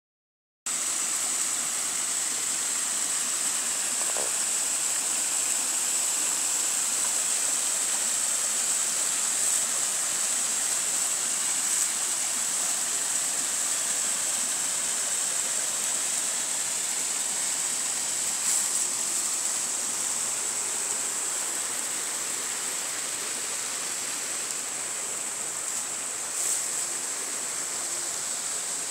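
Small forest stream spilling over rocks in a little waterfall: a steady rush of water, a little quieter near the end.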